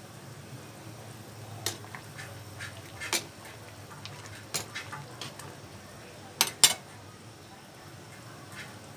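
A ladle knocking and clinking against the side of a cooking pot while broth with vegetables is stirred: scattered knocks, the loudest a quick pair about six and a half seconds in, over a low steady hum.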